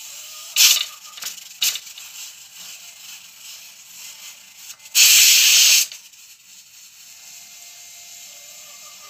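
Pressure cooker letting off steam at its valve: a faint steady hiss, short sharp puffs of steam near the start, and a loud hiss of about a second around the middle.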